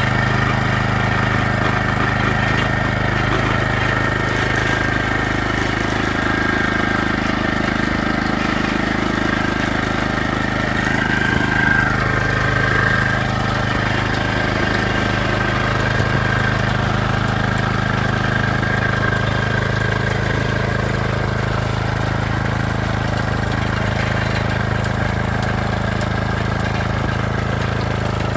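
A vehicle engine running with a steady low hum, as if on the move, with a brief waver in pitch about twelve seconds in.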